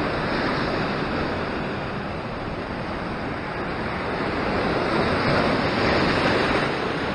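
Ocean surf washing over a rocky shore ledge, a continuous hiss of white water that swells louder with an incoming surge about five seconds in.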